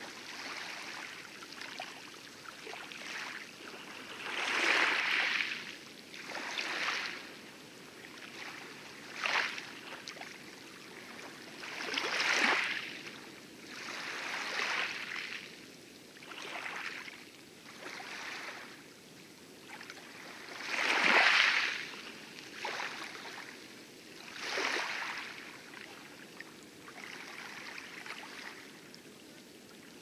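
Water splashing and gurgling around a small wooden-oared rowboat as it is rowed, in surges every two to three seconds with the oar strokes, over a steady low wash of water against the hull.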